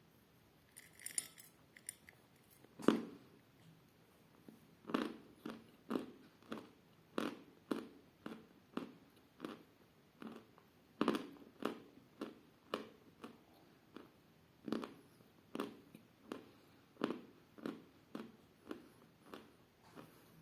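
A person biting and chewing chalk close to the microphone. A single loud crunch comes near 3 seconds in, then steady chewing at about two chews a second.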